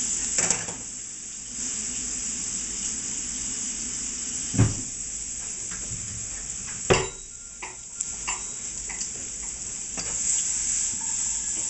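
Red peppers and red onions sizzling in butter in a sauté pan, a steady hiss, with two sharp clatters of pan or utensil about halfway through and a few lighter clicks.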